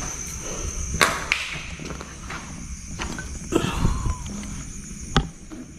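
Footsteps and a few sharp knocks of a person walking, over a steady high-pitched chirring of insects.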